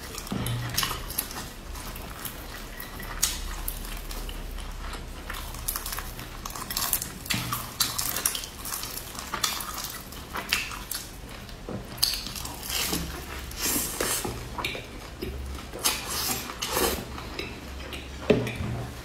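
Close-miked eating of a crisp pan-fried chive-and-egg pancake: the browned crust crackles as it is torn and bitten, with chewing and irregular small clicks and crunches.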